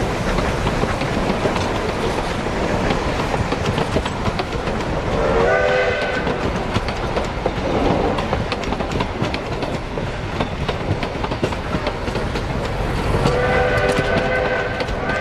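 Durango & Silverton narrow-gauge passenger coaches rolling past close by: a steady rumble with the clickety-clack of wheels over rail joints. Brief held tones come through about five seconds in and again near the end.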